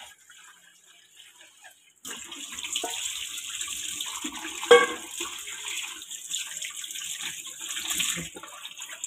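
A stream of cold water running through boiled vermicelli in a stainless-steel mesh strainer, starting about two seconds in as a steady hiss, to rinse the strands so they don't stick together. One sharp knock about halfway through.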